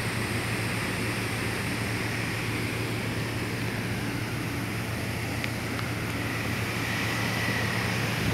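Steady rushing noise of water jets from a ship's external fire-fighting monitors, over a low, even hum from the main engines driving the fire pumps.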